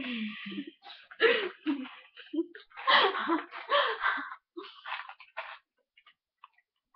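Two women laughing in breathy bursts, which stop about five and a half seconds in.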